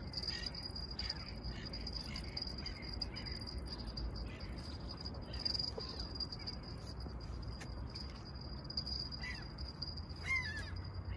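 Steady low rumble of city traffic, with birds calling, corvid-like, a few short arching calls about ten seconds in.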